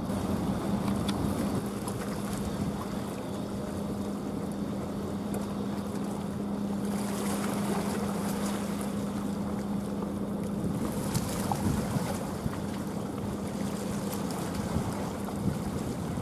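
A ship's engine humming steadily at one low pitch, with wind noise on the microphone that picks up in gusts about seven and eleven seconds in.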